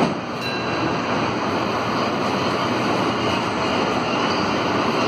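Steady rushing noise inside a CAF NS-07 rubber-tyred metro car, with a faint high whine above it.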